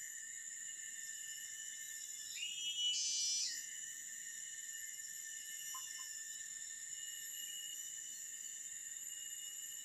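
Forest insect chorus: a steady, high-pitched ringing of several held tones from many insects. About two and a half seconds in, a louder call swells in for about a second and stops.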